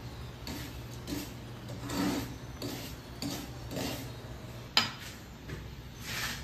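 Metal spatula scraping and stirring a crumbly mixture in a large aluminium wok, in short repeated strokes, with one sharp knock about three-quarters of the way through.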